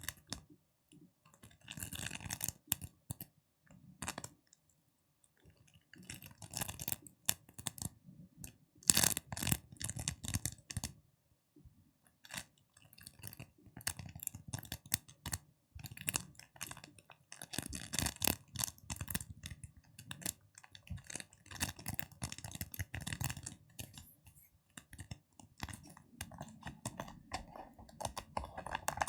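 Fingers tapping and crackling on objects close to the microphone: quick runs of small clicks and crackles, broken by short pauses.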